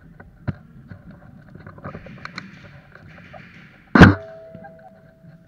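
A single loud, sharp bang about four seconds in, followed by a thin ringing tone that dies away over about a second. Before it, a softer click about half a second in and light rustling and clicking of movement.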